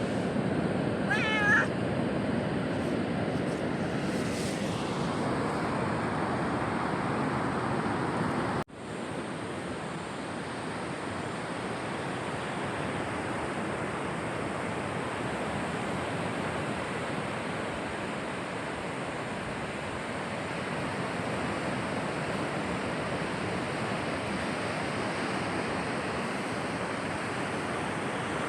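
A domestic cat meows once, a short wavering call about a second in, over a steady rush of sea waves breaking on the shore. The wave noise drops out for an instant near nine seconds and then carries on steadily.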